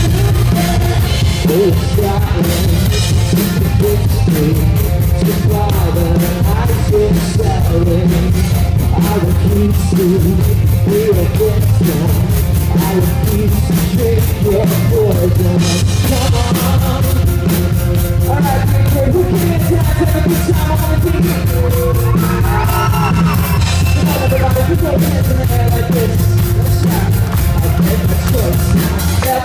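Live rock band playing loudly through a concert PA, with a heavy bass end and a lead vocal over it.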